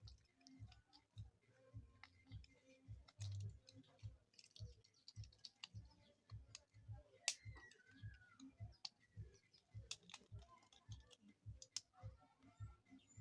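Faint, scattered clicks and light taps of the small plastic parts and housing of a Tecno T101 keypad phone being handled and fitted together, over a faint low pulse about three times a second.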